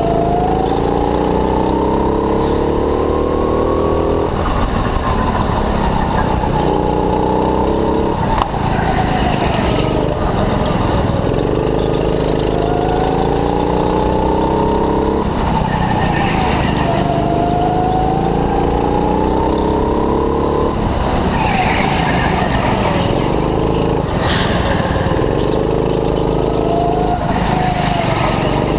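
Go-kart engine running under the driver, its pitch climbing for a few seconds as it revs up and falling away as it eases off, over and over as the kart laps the track.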